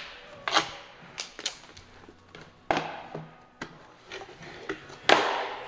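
Plastic lid of a pail of transmission oil being worked loose and pulled off by hand: a string of sharp snaps and clicks as the lid rim releases, with a louder scrape near the end as it comes free.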